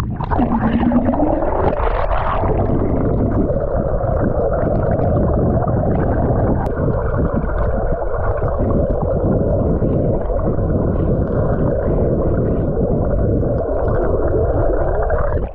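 Muffled, steady rush of river water recorded with the camera underwater, all the high sounds cut away. It stops abruptly at the end.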